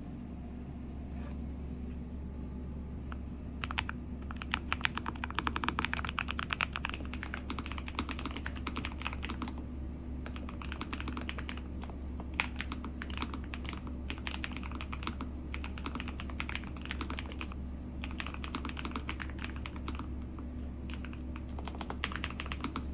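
Typing on a NuPhy Kick75 mechanical keyboard: a quick, irregular run of key clicks starting about four seconds in and going on steadily, over a low steady hum.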